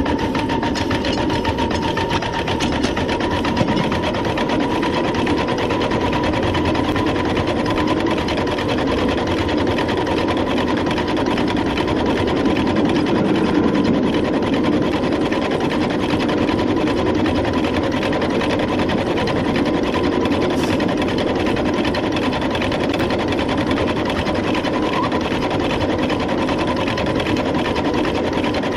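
A 1.5-inch scale, 7½-inch gauge coal-fired Long Island H-10 2-8-0 live-steam locomotive running under way, heard from close beside it as a steady, fast mechanical clatter, with a faint steady tone underneath.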